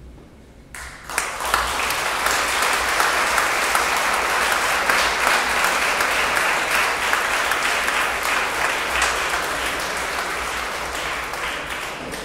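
Audience applauding, the clapping starting abruptly about a second in and slowly thinning toward the end.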